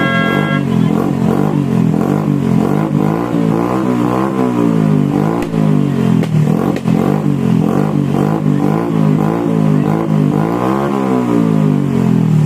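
Motor engines revving loudly and continuously, their pitch rising and falling again and again in a constant din, typical of motorcycles revved during New Year's noisemaking.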